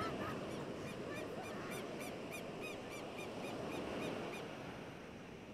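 Surf washing onto a sandy beach, with a bird calling in a quick series of high, evenly repeated notes, about three a second, that stops about four seconds in.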